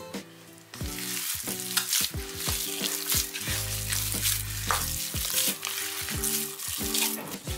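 Hands kneading a crumbly bulgur and red pepper paste çiğ köfte mixture in a metal tray: a dense rustle of many small crackles and squishes that starts about a second in. Background music plays underneath.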